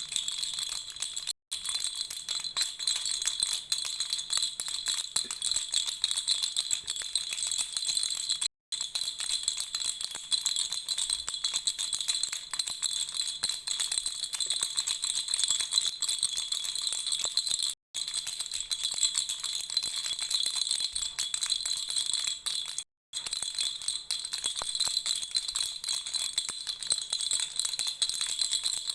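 Lollipop-shaped baby toy rattle being shaken without a break: a dense, steady rattle-and-jingle with a bright ring. Four sudden, very brief silences break it up.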